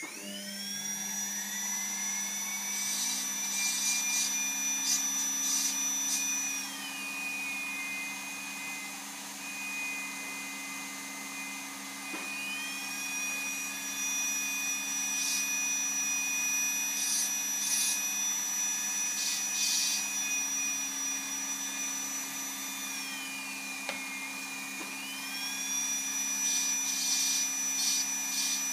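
Dental laboratory handpiece whining at high speed as its bur works texture into the surface of a tooth, with scratchy bursts each time the bur bites into the surface. The whine spins up at once, drops in pitch about seven seconds in, climbs again around twelve seconds, drops again in the last third and then picks back up, over a steady low hum.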